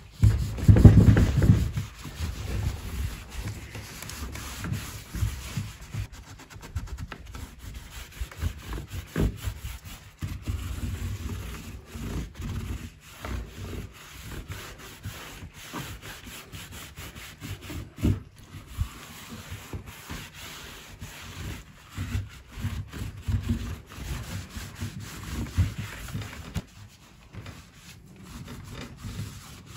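Cloth and gloved hand rubbing thick furniture wax into the dried-out wood of an antique carved bed crown, in uneven back-and-forth strokes. A few low knocks and bumps come as the wooden frame is shifted on the workbench, the heaviest about a second in.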